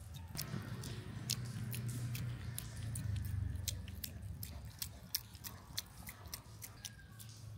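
A baby macaque chewing and biting a piece of food, with many small wet mouth clicks and smacks. Under them is a softer rustle of a paper tissue being handled, louder in the first half.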